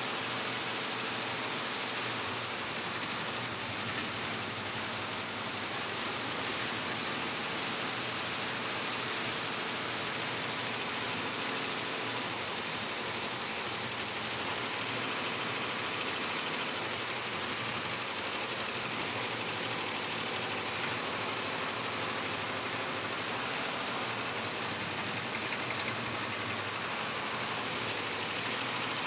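Industrial embroidery machine running steadily with an even, unbroken mechanical noise.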